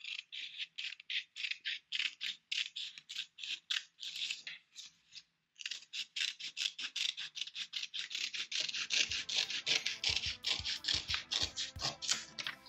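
Scissors cutting a long straight line through cardstock in quick repeated snips, about four a second, with a brief pause about five seconds in.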